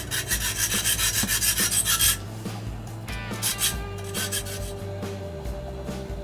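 Quick, even rasping strokes of a hand tool working metal on an oil furnace burner, about six a second for two seconds, then a shorter burst, over a steady low hum.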